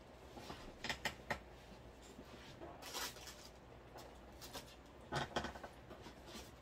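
Scattered rustling with a few light clicks and knocks, the sounds of objects being handled and moved about. Several sharp clicks come about a second in, and short rustles follow near the middle and toward the end.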